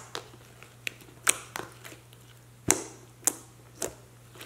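Fingers poking and pressing glossy white slime with black foam beads in a plastic tub, giving sharp, irregular clicks and pops, about eight in all, the loudest about a second and a quarter in and near the middle.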